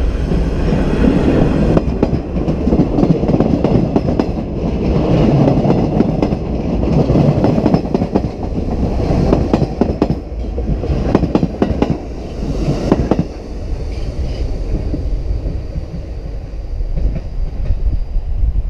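Vintage New York City subway train, the Train of Many Metals, passing close by: a heavy rumble of wheels on the rails with a quick run of clicks over the rail joints about two thirds of the way through, then fading as the last cars go by.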